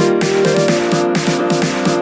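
Background music with a fast, busy electronic beat and quick repeating melodic notes.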